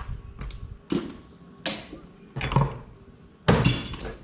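Hand tools being moved and set down on a cluttered table: a run of separate metal clanks and clinks about a second apart, the loudest near the end ringing briefly.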